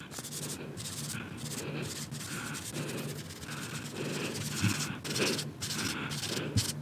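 Cotton applicator loaded with soft pastel mixed with baby powder, rubbed across drawing paper in repeated short strokes, about two a second.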